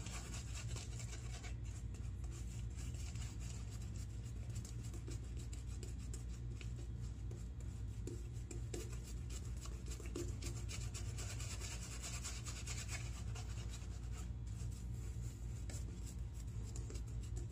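Shaving brush swishing and scratching as it works soap lather over two-day stubble, a continuous bristly rubbing with quick back-and-forth strokes. A steady low hum lies underneath.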